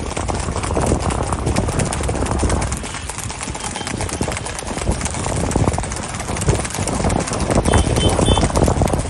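Hooves of several ridden horses cantering on a concrete road, a dense, irregular clatter of hoofbeats, with motorcycle engines running alongside underneath.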